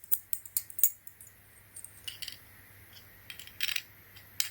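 Small metal hex bits and the driver of an RC repair tool kit being handled, giving a quick run of sharp clicks in the first second, then scattered light clinks and a short scrape.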